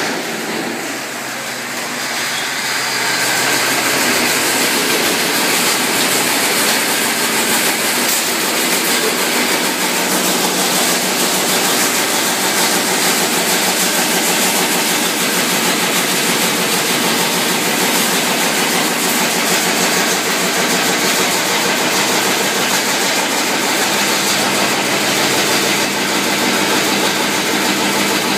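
Shell-processing line machinery running, with motors and a stainless-steel perforated conveyor carrying top shells, making a loud, steady mechanical noise. The noise grows louder over the first few seconds and then holds even.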